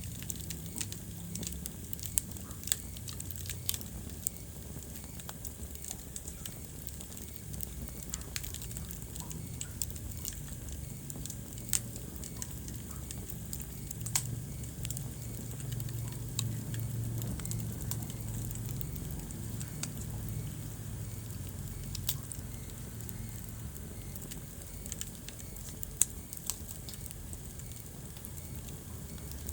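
Wood fire crackling in a fireplace: scattered sharp pops, a few of them loud, over a low steady rumble of the flames.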